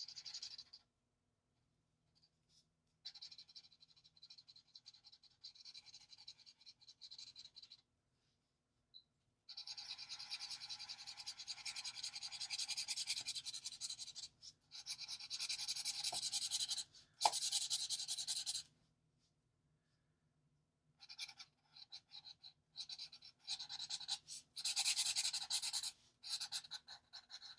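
Alcohol marker nib rubbing on paper in rapid back-and-forth colouring strokes, coming in stretches of several seconds with short pauses between.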